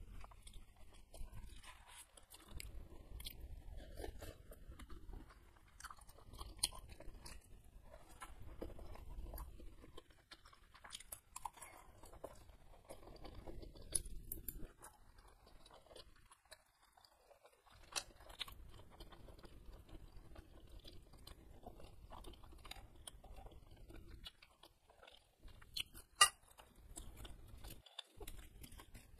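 Close-up mouth sounds of a person chewing a mouthful of noodles and beef meatball in broth, wet and clicking. Near the end comes a single sharp crack as a crisp kerupuk cracker is broken.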